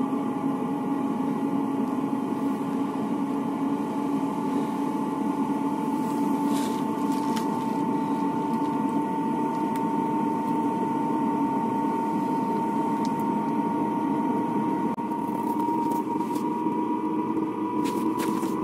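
Chinese Webasto-type diesel air heater running during start-up, heard at its exhaust under the van. A steady hum and whine rise slowly in pitch, with a few faint clicks.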